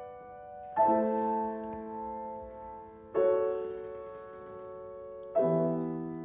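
Slow, gentle background piano music: three sustained chords, each struck about two seconds after the last, ringing on and fading away.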